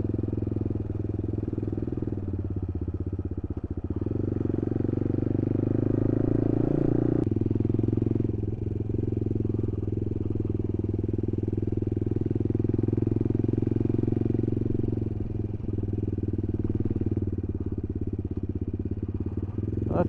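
Motorcycle engine running under way with wind rush. About four seconds in it climbs steadily in pitch as the bike accelerates, then drops suddenly about seven seconds in, as at a gear change, and runs steadily after that.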